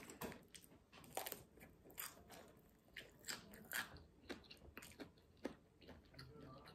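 Close-miked mouth sounds of someone biting and chewing a crispy fried dumpling: faint, irregular crunches and wet chewing.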